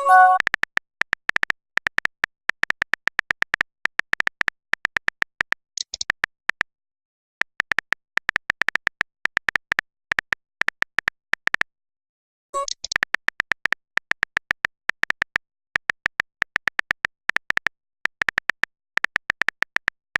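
Phone keyboard typing sound effect: runs of rapid short ticks, several a second, with pauses between them, and a short message pop near the start, about six seconds in and again about twelve and a half seconds in.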